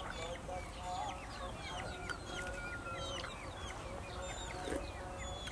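Birds chirping, with chickens clucking: a dense run of many short chirps overlapping one another.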